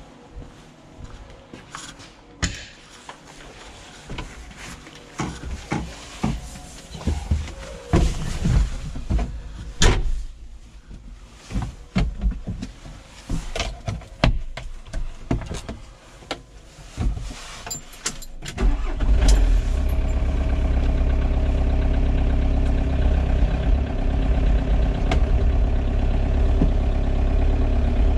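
A series of knocks and clicks from the forklift cab. About two-thirds of the way in, the forklift's engine starts and then idles steadily and loudly.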